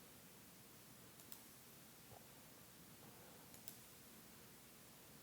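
Near silence with a couple of faint computer mouse clicks, one about a second in and another near the middle.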